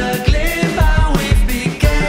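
Music: a song with a band backing, sustained pitched instruments over drums keeping a steady beat.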